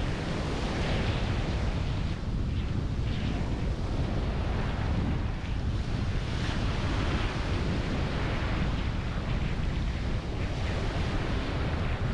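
Small waves breaking and washing up a sandy beach, in gentle surges, with wind rumbling on the microphone.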